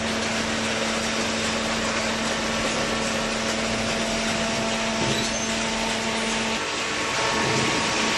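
Horizontal waste paper baler machine running: steady machine noise with a constant hum. The hum drops out briefly about six and a half seconds in, then returns slightly louder.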